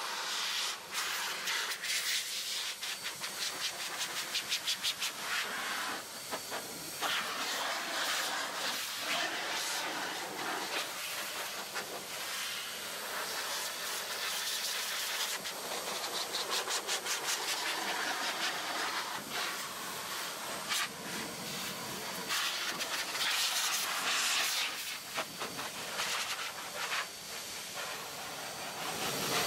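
Turbo Blaster motorcycle dryer blowing a steady hiss of air out of its hose nozzle, blasting water off a soaking-wet motorcycle's bodywork. The rush rises and falls and goes into rapid fluttering now and then.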